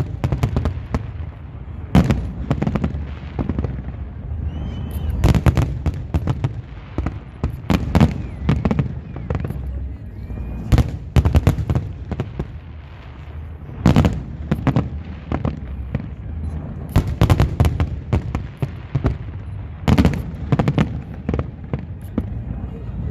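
Fireworks display: aerial shells bursting in irregular clusters of sharp bangs a few seconds apart, over a constant low rumble. A few faint rising whistles sound briefly between the bursts.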